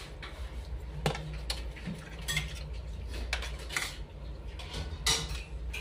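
Spoons and fingers clinking and scraping on plates, a scatter of light irregular clicks during a meal, over a steady low hum.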